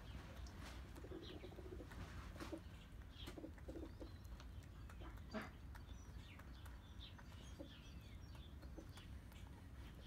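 Faint crunching and clicking of a cat chewing a mix of cracked corn and layer pellets from a plastic bowl, with birds calling now and then in the background.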